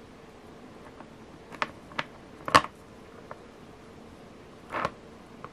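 Small handling noises from fingers tying a knot in beading thread at a metal bead end: a quick run of three sharp clicks, the last the loudest, a faint tick, then a short rustle near the end.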